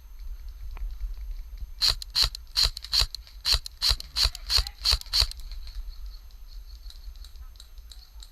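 Airsoft gun firing about ten single shots in a quick series, roughly three a second, each a sharp snap.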